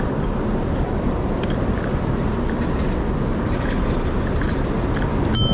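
Steady city traffic noise and wind rush heard while riding along a street, with a short high ring near the end.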